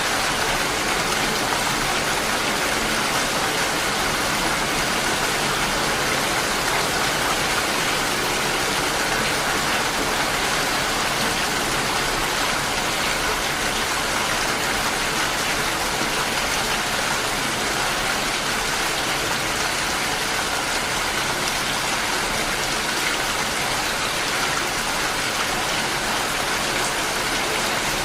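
Steady rain, an even hiss of many drops that neither builds nor fades.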